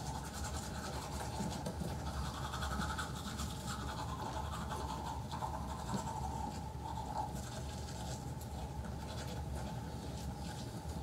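Two people brushing their teeth with manual toothbrushes: faint, steady scrubbing over a low background hum.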